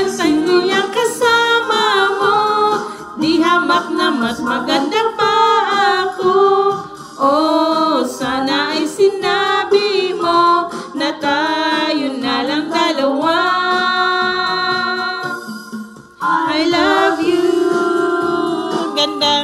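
A woman singing into a wireless karaoke microphone, her voice played through a portable karaoke speaker, with long held notes and a short break about three-quarters of the way through.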